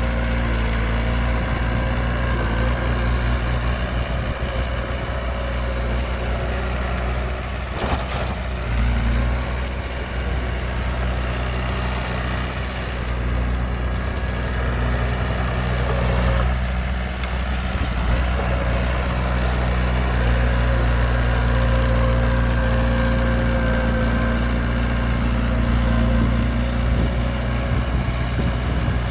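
Heavy diesel engines of earthmoving machinery running steadily with a deep, even hum, with a short knock about eight seconds in.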